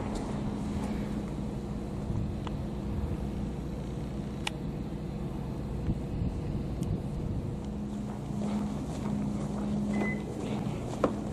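Steady low mechanical hum of an engine or motor running, holding a constant low tone, with a few faint short clicks and a sharper click near the end.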